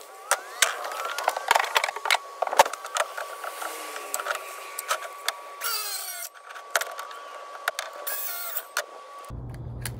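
Battery-powered Craftsman saw cutting a 2x6 board: a steady whine with many sharp clicks and cracks of the wood. The saw is weak at the job. The sound stops suddenly about nine seconds in.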